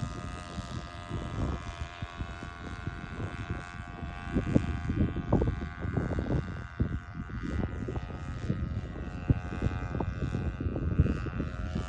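Gerald Smith Skylark spark-ignition model engine running steadily as the control-line model plane flies its circles, a thin buzzing tone. Wind gusts rumble on the microphone underneath.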